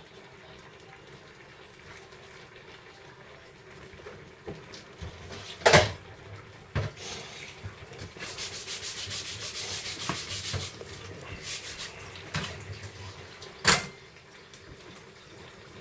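Kitchen work noises: two loud sharp knocks, several seconds apart, with smaller clacks between them and a few seconds of rubbing or scraping, after a quiet start.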